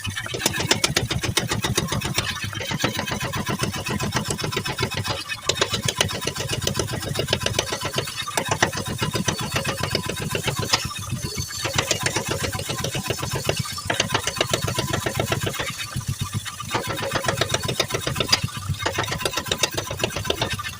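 Mechanical power hammer pounding hot steel with rapid, even blows, in runs of a few seconds broken by brief pauses as the plough part is reshaped.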